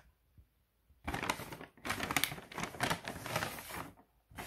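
Paper takeaway bag rustling and crinkling as a hand rummages inside it, in two spells: a short one about a second in, then a longer one of about two seconds.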